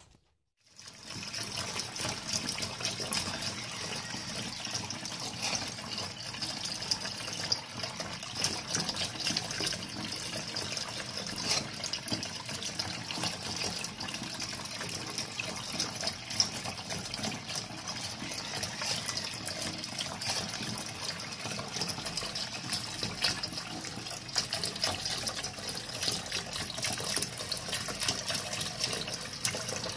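Tap water running steadily in a thin stream and splashing into a sink, starting about a second in.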